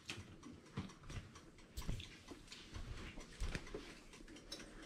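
Faint scattered small clicks and a few soft low knocks.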